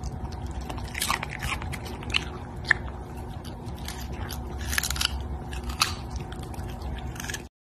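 A small dog crunching and chewing a raw carrot, with irregular bites and one louder snap a little under three seconds in.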